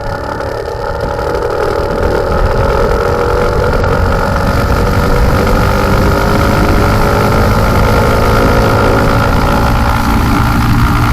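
Bajaj Boxer 150X motorcycle's single-cylinder four-stroke engine running under load. Its pitch rises slowly and steadily as the bike gathers speed, and it gets louder over the first couple of seconds before holding level.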